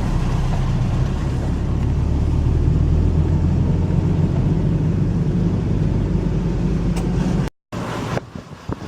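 Car engine drone and road noise heard from inside a moving car, steady and low. Near the end the sound cuts out, and a quieter stretch with a few light clicks follows.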